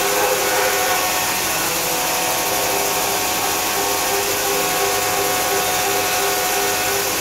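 A CNC machining center milling an aluminum profile: the spindle and cutter give a steady run with several faint held tones, under a constant hiss from a hand-held spray nozzle blasting coolant mist onto the cut.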